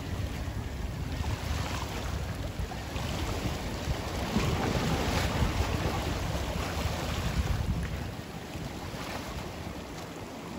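Sea waves washing and splashing against jetty rocks, with wind rumbling on the microphone. The surge is loudest in the middle and eases off a little about eight seconds in.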